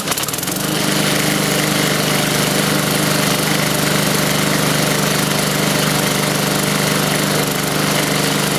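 Briggs & Stratton engine on a Qualcast 450E rotary lawnmower pull-started and catching at once, then running at an even, steady speed. It no longer hunts or surges: the sheared flywheel key has been replaced.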